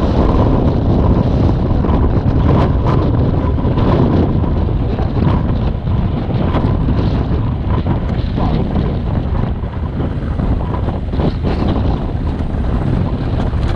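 Dual-sport motorcycle ridden on an off-road track: the engine runs under heavy wind noise buffeting the microphone, with a few sharp knocks from the rough ground.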